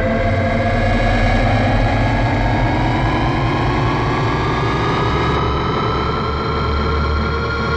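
Jupiter 2 atomic engine sound effect: a steady, layered electronic hum over a low drone. A whine rises in pitch over the first five seconds or so, then holds steady.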